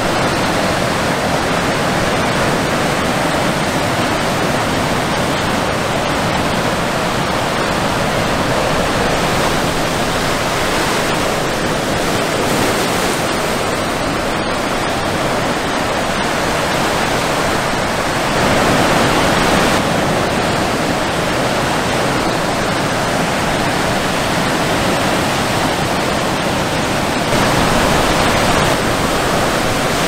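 Ocean surf breaking close to shore: a steady rush of white water, swelling a little louder about two-thirds of the way through and again near the end.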